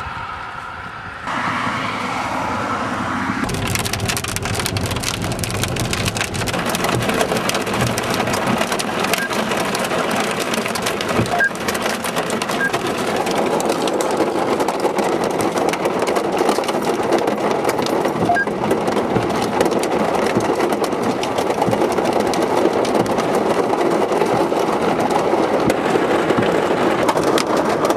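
Rain and small hail pelting down: a loud, dense, continuous patter of hard ticks that starts up about a second in and grows heavier a couple of seconds later.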